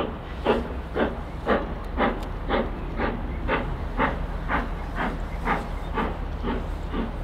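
GWR Castle class four-cylinder 4-6-0 steam locomotive 7029 'Clun Castle' working hard. Its exhaust beats come sharp and even, about two a second.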